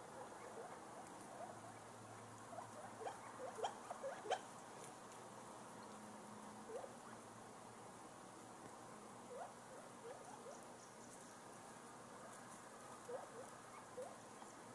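Faint, irregular soft clicks and small wet squelches of a verdin's bill pecking into the pulp of an orange half, bunched in quick runs a few seconds in and again later.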